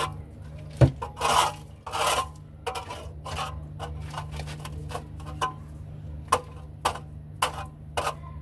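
Repeated hand scraping strokes, roughly two a second, as dirt is scraped off a surface, with one sharp knock about a second in, over a steady low hum.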